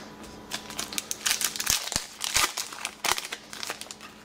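Foil trading-card pack wrapper crinkling and tearing as a pack is opened and handled, in quick runs of sharp crackles through the middle.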